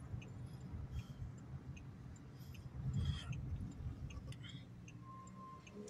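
Inside a moving car: low engine and road rumble with a turn signal clicking steadily, a little under once a second, as the car makes a turn. A short steady beep sounds near the end.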